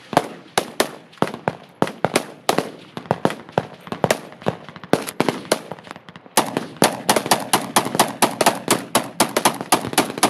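Machine guns firing in rapid bursts, shots overlapping unevenly as several guns fire at once. The firing grows denser about six seconds in.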